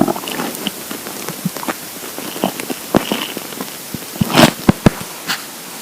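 Empty stomach gurgling from hunger: irregular small pops and crackles, with a louder cluster of gurgles about four and a half seconds in.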